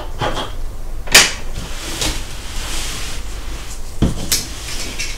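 Clicks and knocks of an opened Lenovo IdeaPad S740 laptop being handled and turned around on the desk: a sharp click about a second in, a few lighter taps, then a duller knock and another click around four seconds in.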